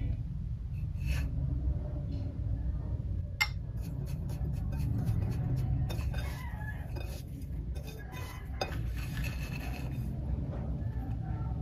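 Kitchen utensils clinking and scraping against dishes, a run of small clicks and rubs, over a steady low rumble.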